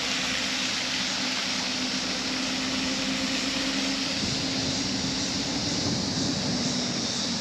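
Wind blowing across the microphone, a steady rush, with a low steady hum beneath it that grows fainter after about four seconds.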